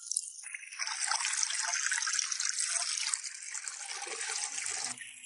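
Stream water running into a large plastic bottle laid in a shallow trickle as it fills: a steady rushing splash that cuts off sharply about five seconds in.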